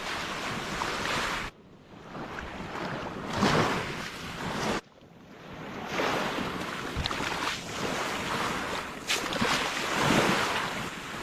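Sea waves washing up on a beach, the surf swelling and fading every few seconds, with wind on the microphone. The sound drops out abruptly twice, about one and a half and five seconds in, then builds again.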